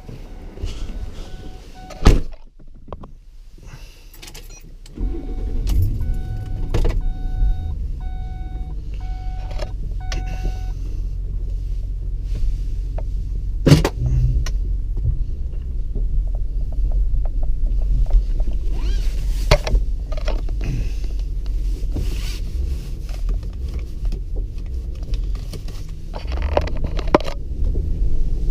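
A Ford Expedition with a K&N aftermarket air intake: a vehicle warning chime pulses, and a loud thump comes about two seconds in. About five seconds in the engine starts, and it then runs with a steady low rumble while the chime keeps pulsing for several more seconds. There is another sharp knock in the middle, and the engine rises a little near the end.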